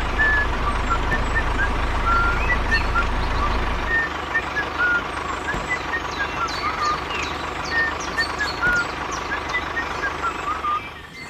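Toy truck running: a steady mechanical drone with a thin steady high tone. The low hum eases off about four seconds in, and the sound fades briefly near the end.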